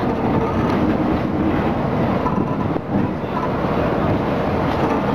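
Botchan Ressha's diesel locomotive hauling its carriage along street tram track: a steady running rumble of wheels and engine, with wind buffeting the microphone on the open carriage platform.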